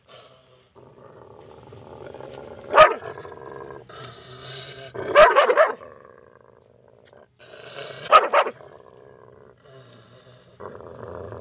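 A dog barking in short outbursts: one bark about a quarter of the way in, a quick run of barks around the middle, and a couple more a little before the end, with a low growl between the barks.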